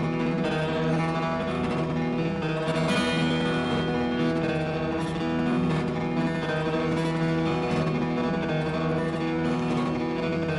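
Background music, a guitar piece.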